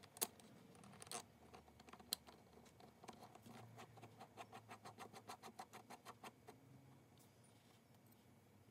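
A few sharp metal clicks as the threaded adjuster screw of a Stanley 220 block plane is seated in the cast-iron body, then a quick, even run of soft ticks, about six a second, as its knurled adjusting nut is turned by the fingers.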